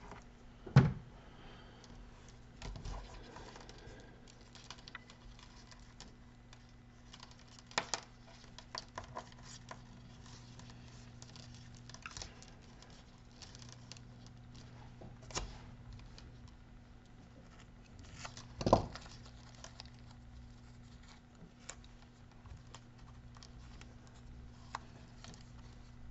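Masking tape being handled and wrapped by hand around a bundle of thin jumper wires: soft crinkling with scattered small clicks and a few louder knocks, over a low steady hum.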